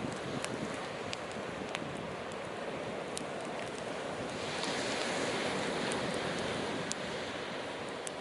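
Sea surf washing on the shore in a steady wash, one wave swelling about halfway through, with scattered sharp crackles and pops from a burning driftwood fire.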